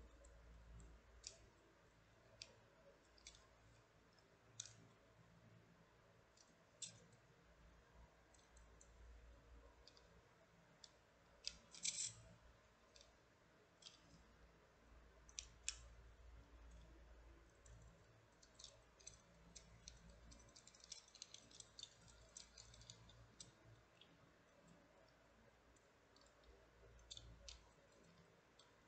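Plastic rotating-and-sliding bead puzzle ball being twisted and slid by hand: scattered light clicks, a louder cluster of clicks about twelve seconds in, and a quick run of clicks about two-thirds of the way through.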